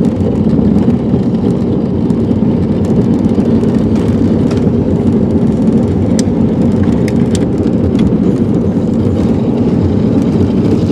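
Jet boat engine and jet drive running steadily under way.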